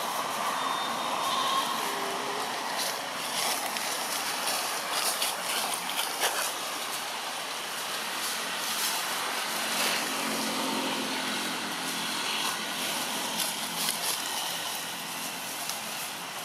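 Steady outdoor background noise with scattered short rustles and crackles of dry leaves as macaques move about on the leaf-littered forest floor.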